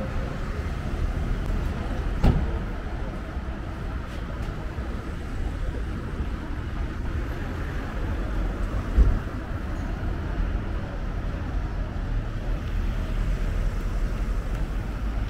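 Town-street ambience with road traffic running past, a steady low rumble, broken by two short thumps, about two seconds and nine seconds in.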